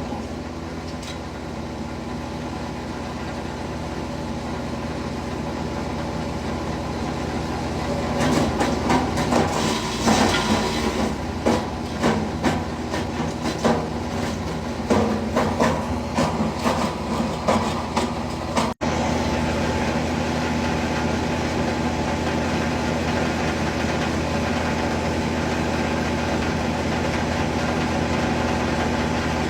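Wood chipper running steadily. For about ten seconds in the middle, irregular cracks and knocks ride over the engine as material is fed through and chipped. After a brief cut it settles back to steady running.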